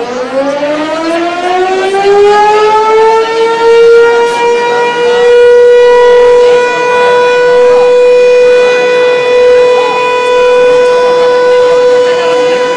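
Siren winding up from a low pitch over about four seconds, then holding a loud, steady note.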